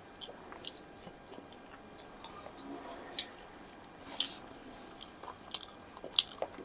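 A person chewing food close to the microphone, with short, wet mouth smacks scattered every second or so.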